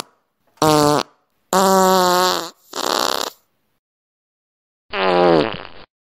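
Fart sound effects: four separate farts. The first is short and buzzing, the second is a steady one about a second long, and the third is a breathy, airy one. After a pause of over a second comes a final fart that falls in pitch.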